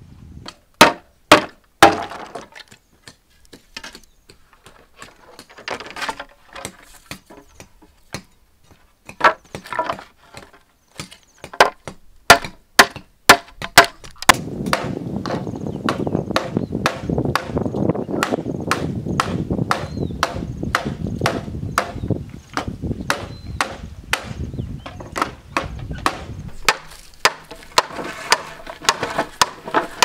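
Hollow green bamboo poles clacking and knocking against each other as they are handled and stacked: sharp wooden clacks, at times several a second. Through the middle stretch a steady rushing noise lies under the knocks.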